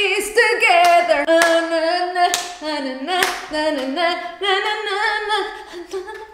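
A woman singing loudly without accompaniment, holding long, wavering notes, with a few sharp hand claps between phrases.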